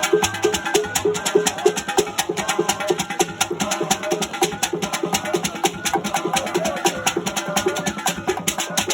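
Igbo ogene music: a fast, steady percussion groove of dense rattling strokes under a short pitched figure repeated about four to five times a second.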